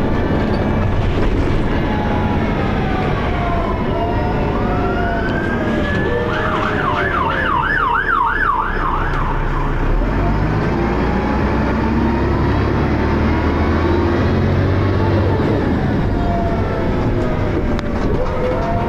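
Dennis Arrow bus under way, its ZF automatic gearbox whining in pitches that glide up and down as it pulls and changes gear. Midway, a yelping siren wails rapidly up and down for about three seconds.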